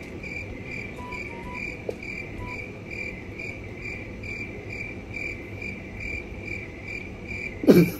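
Cricket chirping in a steady, evenly spaced pulse, a few chirps a second. A short burst of voice comes just before the end.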